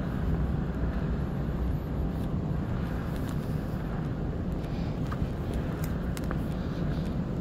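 Steady low rumbling hum of an empty airport concourse, the building's ventilation and machinery, with a few faint ticks between about five and six and a half seconds in.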